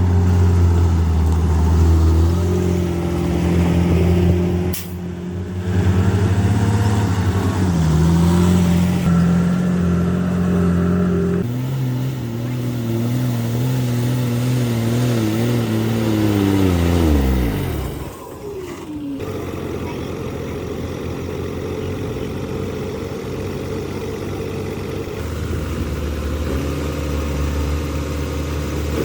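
Engines of heavy earthmoving machines running and revving, in several clips cut together. About sixteen seconds in, one engine's pitch falls steeply as it slows.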